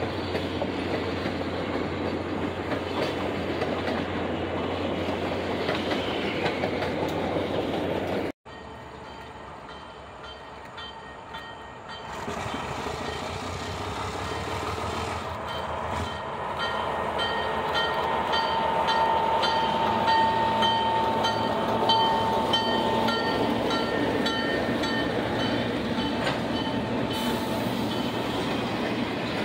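Train running on track, its wheels clicking rhythmically over the rail joints. The sound breaks off suddenly about eight seconds in and picks up again quieter, and a steady high-pitched tone rings out over the running noise in the second half.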